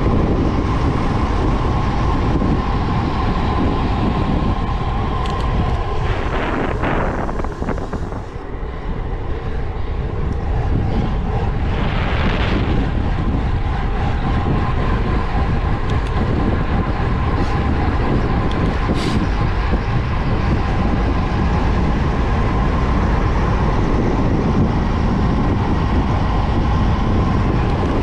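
Wind rushing over the microphone and road-bike tyres humming on asphalt during a fast downhill descent. The rush eases briefly about eight seconds in.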